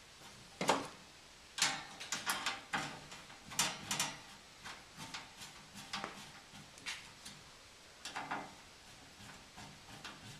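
Metal parts of a steel cargo barrier knocking and clinking as a wing is fitted to the main grid and bolted on: an irregular series of sharp knocks and clicks, the loudest just under a second in and a quick cluster about two to four seconds in.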